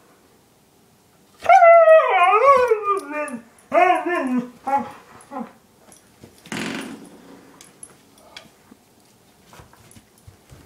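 A dog vocalizing during play with another dog: a long, wavering whine-howl that slides down in pitch, then several shorter whining calls. About six and a half seconds in there is a short, harsh, noisy huff.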